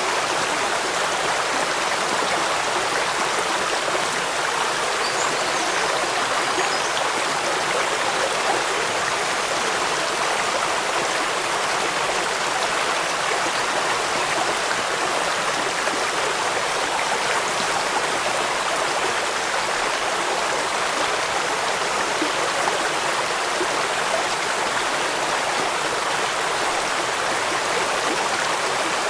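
Flowing water rushing steadily in an even hiss, with no single drops, splashes or changes standing out.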